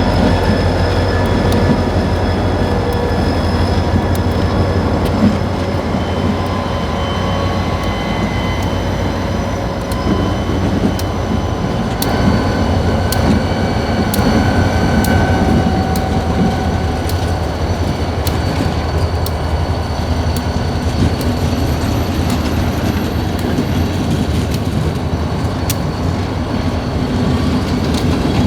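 Freight train rolling past. Its wheels click over the rail joints, and thin, high wheel squeals come and go.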